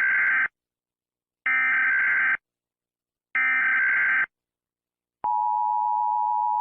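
Emergency Alert System broadcast signal. First come three short bursts of screechy digital SAME header data tones. About five seconds in, the steady two-tone EAS attention alarm starts.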